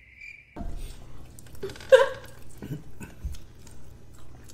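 A high chirp pulsing about twice a second stops abruptly about half a second in. Then come small clicks and chewing sounds of people eating burgers and fries, with a fork and knife working on the food, and one short, loud, high-pitched yelp about two seconds in.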